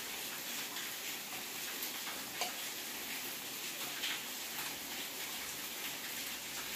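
Paniyaram sizzling steadily in a paniyaram pan on a gas stove, with a couple of light clicks as a wooden stick lifts the cooked dumplings out.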